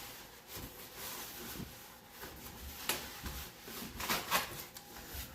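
Packaging being handled: scattered rustles and light clicks of cardboard and loose packing, with a sharp click about three seconds in and a run of rustling just after four seconds.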